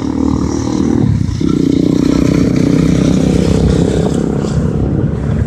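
Truck engine towing a flatbed trailer, running steadily under load; its note changes and grows louder about a second in.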